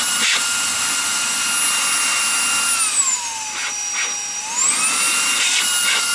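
Reikiya HV-C11 cordless handheld vacuum running with the vacuum attachment fitted: a steady high motor whine that drops in pitch about three seconds in and climbs back up a second and a half later.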